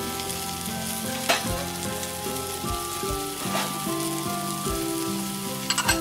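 Vegetables sizzling as they fry in a metal kadai, with a couple of sharp clinks and then a quick run of metal spatula clinks against the pan near the end as stirring starts.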